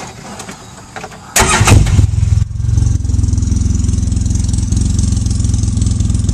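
2012 Polaris Ranger 800 XP's twin-cylinder engine with a custom glasspack exhaust being started: about a second and a half in the starter cranks briefly, the engine catches about a second later and settles into a steady, loud idle with a fast, even exhaust pulse.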